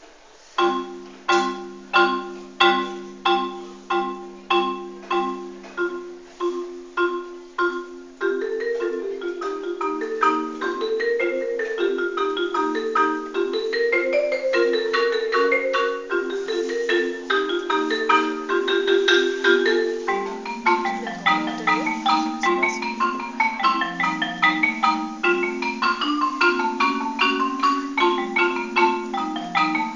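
Solo marimba played with mallets. A chord is struck over and over, about two strokes a second, each ringing and fading. From about eight seconds in it gives way to a flowing line of faster notes over low chords.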